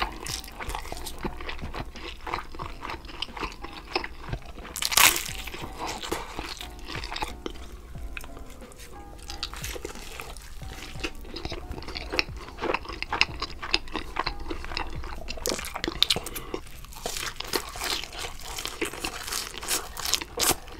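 Close-miked eating sounds: crunching through the fried batter of a large battered fish fillet and chewing it, in irregular bursts of crisp crunches with one loud crunch about five seconds in, over background music.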